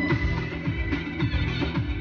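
Chinese folk dance music with a quick, steady beat, played over a stage PA system.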